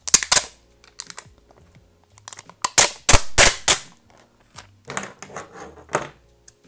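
Clear packing tape being pulled off the roll in loud rips: one at the start, the loudest run about three seconds in, then softer handling of the tape strip about five to six seconds in.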